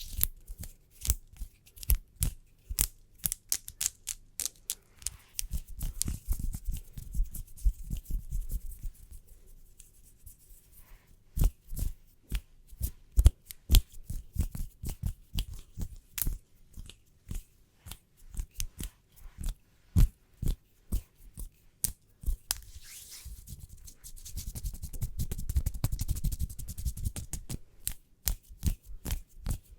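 Fingernails tapping in quick, irregular clicks, with two stretches of hands rubbing together, a soft swishing rush, starting about five seconds in and again a little after twenty seconds in.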